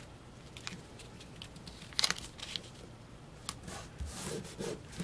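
Blue painter's tape pulled from the roll and torn off about two seconds in, then pressed and rubbed down over a stencil on paper in a few soft scratchy strokes.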